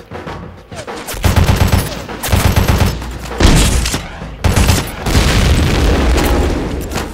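Rapid gunfire sound effects in several bursts of quick shots, starting about a second in.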